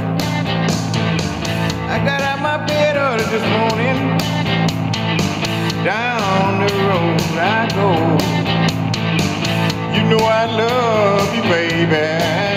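Bose SoundDock speaker playing a guitar-backed song, with a singer's voice coming in about two seconds in.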